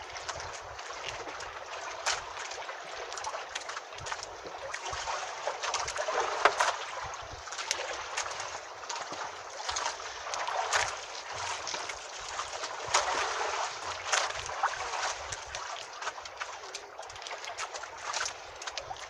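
Water sloshing and lapping against a small wooden boat's hull, with irregular small splashes and knocks.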